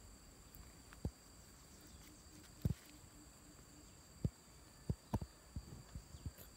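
Irregular dull low knocks of handling on a handheld camera as it moves through foliage, a single one about a second in and more in quick succession in the second half. They sit over a faint steady high-pitched buzz of insects.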